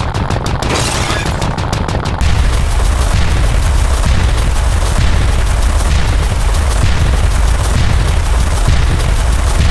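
Short sound effects fired in rapid succession, several a second, that about two seconds in pile up into one continuous, dense barrage with heavy bass, like a fusillade.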